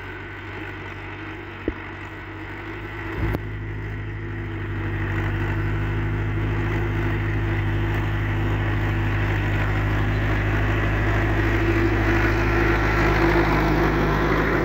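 Ursus C-360 tractor's four-cylinder diesel engine running steadily as it pulls a plough through stubble, growing louder as the tractor comes closer.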